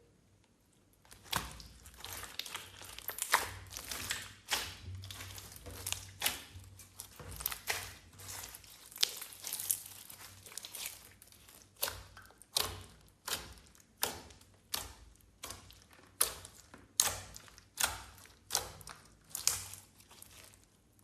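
Hands kneading and pressing clear slime: sticky squelches with crackling pops. It starts about a second in and settles in the second half into a steady rhythm of presses, a little more than one a second.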